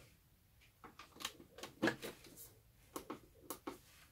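Irregular light clicks and knocks of small things being handled, starting about a second in, with the loudest knock about halfway through.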